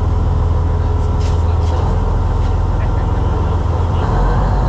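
Party fishing boat's engines running steadily as it motors slowly through the channel, a low constant drone.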